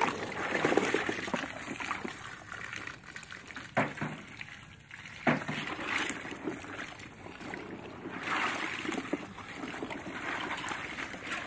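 Water from a garden hose running into a plastic basin of Thai round eggplants, splashing and trickling as a hand stirs the fruit to wash it. A couple of sharp knocks come midway.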